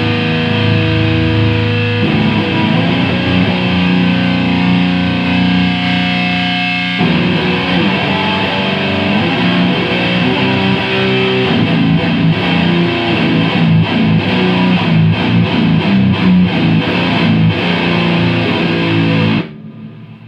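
Electric guitar with distortion played through an S&K VHD preamp into a rebuilt Acoustic 833 power amp. It starts with held chords and moves to quicker picked riffs, then stops suddenly near the end.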